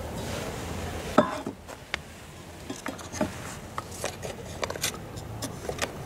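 Handling knocks as wooden blocks and an oxalic acid vaporizer are set against a wooden beehive: one sharp knock about a second in, then a run of smaller taps and clatter.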